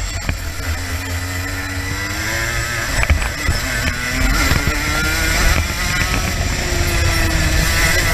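Two-stroke racing kart engine heard from the driver's seat, its pitch dropping into corners and climbing again as it accelerates out of them several times, over heavy wind rumble on the microphone.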